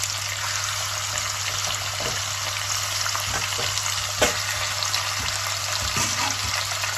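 Lamb shanks and chunks of lamb sizzling in hot oil in a stainless steel pot, over a low steady hum. A few short knocks sound as the pieces are set in and bump the pot, the sharpest a little past the middle.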